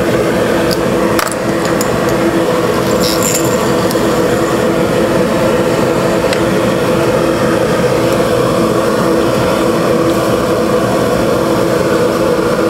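Electric workshop motors running steadily with a constant hum, from the dust vacuum and power carving tools started for detail carving of jade. A few faint ticks sound over it.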